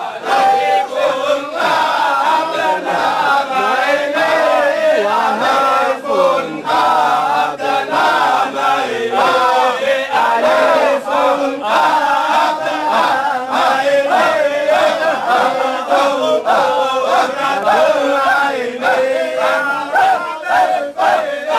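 A group of men chanting Shadhili Sufi dhikr together, loud and with a steady pulse.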